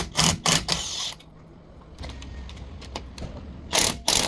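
Impact wrench fired in short bursts, about four in quick succession at the start and two more near the end, working loose a steering-end fastener.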